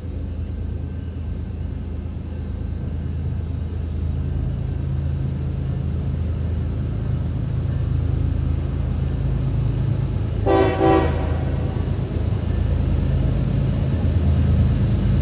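Diesel locomotive approaching, its engine drone growing steadily louder, with one short horn blast about ten seconds in.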